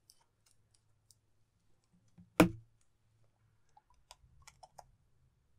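Glass nail polish bottle being twisted open: one sharp click about two and a half seconds in as the cap breaks loose, then a few small clicks near the end as the cap and brush come out.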